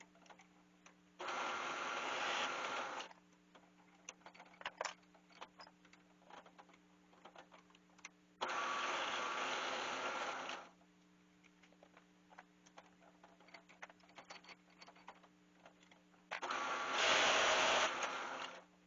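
Drill press boring into a poplar dowel: three separate passes of about two seconds each. Between them come small clicks of the workpiece being handled and turned in the jig.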